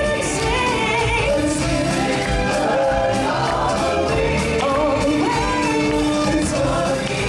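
A live stage-show musical number: a choir of singers over amplified backing music with a steady beat.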